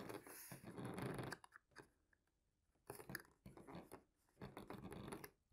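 Plastic propeller spinner cone being pushed and twisted by hand onto its backplate over the propeller hub of a foam RC airplane, making several short, faint scraping and rubbing sounds.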